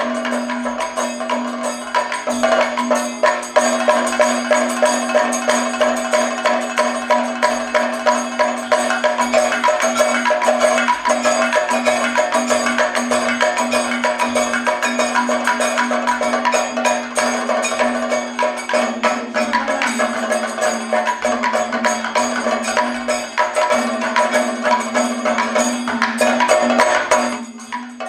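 Kathakali percussion: chenda and maddalam drums playing a fast, dense rhythm over a steady held tone, stopping abruptly near the end.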